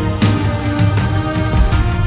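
Background music with a steady beat and strong bass, in the style of a film soundtrack.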